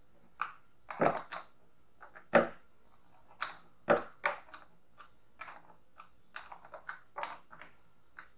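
About a dozen scattered light clicks and knocks of a chainsaw bar wrench (scrench) being picked up off the bench and worked on the saw's side-cover nuts.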